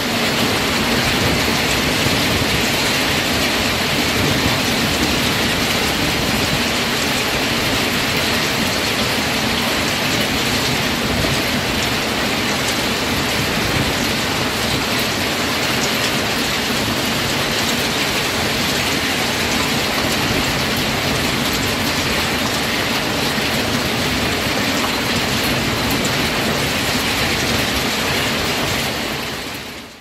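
Hailstorm: a loud, steady, dense patter of countless small hailstones striking the street, roofs and parked car. The sound fades out at the very end.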